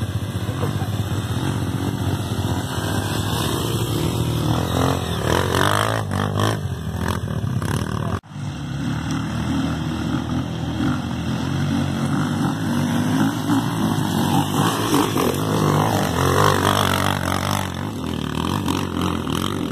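Dirt bike engine running and revving, with a sudden brief cut-out about eight seconds in.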